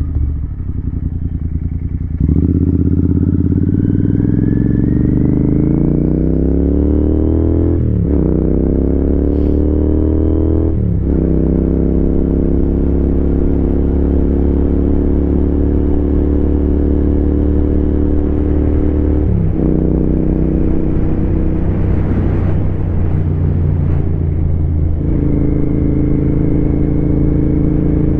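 Royal Enfield Continental GT 650's 648 cc parallel-twin engine under way. After a quieter couple of seconds it pulls hard, rising in pitch, with upshifts about eight and eleven seconds in, then runs at a steady cruise, with another gear change near twenty seconds.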